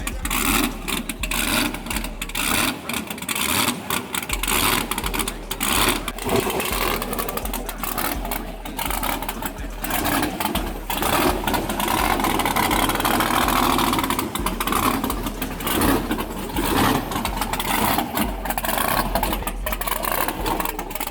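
Drag-race car engine running with a fast, choppy mechanical chatter, swelling louder for a few seconds midway as it is revved.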